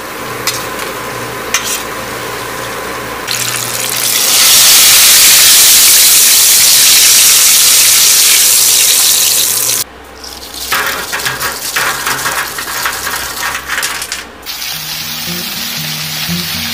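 Oyster mushroom pieces deep-frying in hot vegetable oil, a steady sizzle that swells into a loud, bright hiss for several seconds in the middle. In the second half there is a run of short clicks and knocks over the frying.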